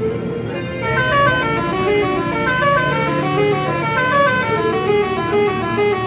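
Bus telolet horn, a multi-tone musical air horn, playing a quick melody of stepped notes that starts about a second in, heard from inside the bus over the steady low running of its engine.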